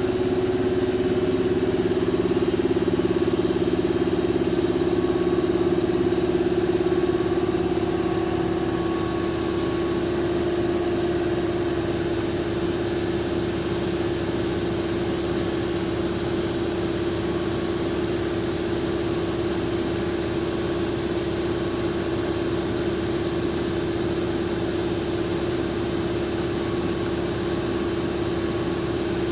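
Lathe running with a steady machine hum and a faint high whine. About seven seconds in, the hum drops slightly in pitch and level, then holds steady.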